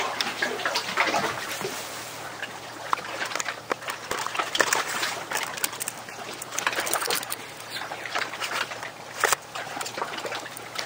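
A freshly caught mackerel flapping and slapping on wet wooden jetty boards while it is handled, an irregular run of quick wet patters and splashes.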